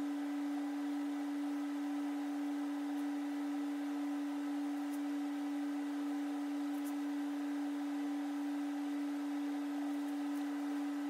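A single steady, unvarying pure tone at a low-middle pitch, over a faint hiss.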